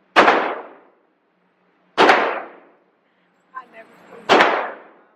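Three gunshots at a shooting range, roughly two seconds apart, each followed by a short echoing decay.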